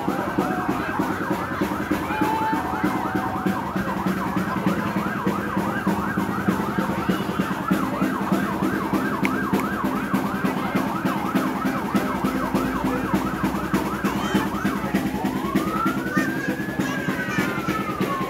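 Emergency vehicle siren sounding in a rapid repeating yelp, then switching near the end to a slow wail that rises and falls once, over a steady low hum.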